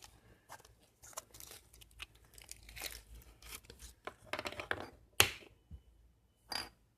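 Irregular rustling and crinkling handling sounds, like paper or plastic being handled, with a sharp click a little after five seconds in.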